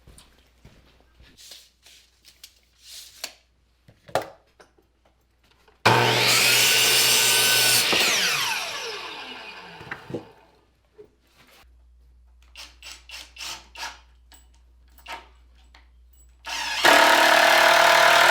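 Electric power saw cutting framing lumber: a few light knocks, then the saw runs for about two seconds and winds down with a falling whine; after more scattered knocks it starts again near the end.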